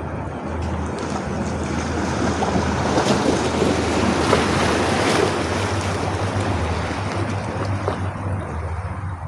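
Sea waves washing in: the rush of surf swells over the first few seconds, peaks in the middle and slowly eases back, over a steady low rumble.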